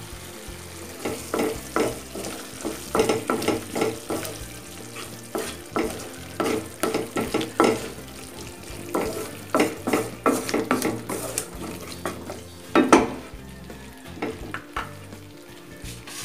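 Wooden spatula stirring and scraping thick, oily tamarind paste (puli kaichal) in a nonstick kadai: irregular strokes, several a second, with a louder stroke about three-quarters of the way through, over a faint steady sizzle from the finished paste.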